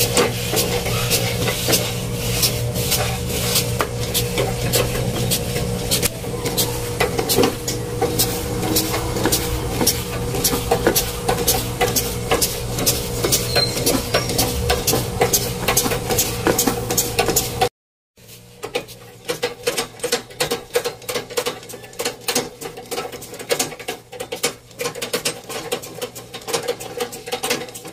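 Old Singer treadle sewing machine being pumped by foot and running, its mechanism giving a rapid, steady clicking clatter over a low hum. The sound breaks off briefly about two-thirds of the way through and then goes on more quietly.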